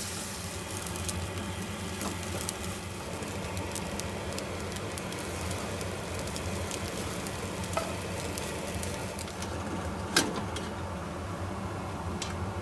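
Food sizzling in a frying pan as it is stirred, with many small crackles over a steady low hum and one sharp knock of the utensil about ten seconds in.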